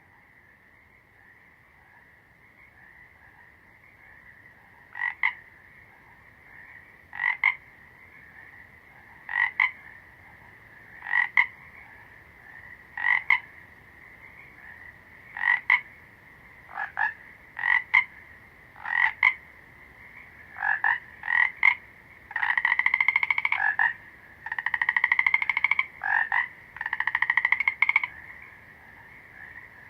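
A frog calling over a steady high background chorus. Short calls come about every two seconds from about five seconds in and come faster later, then three long pulsed calls of about a second and a half each, the first rising slightly in pitch.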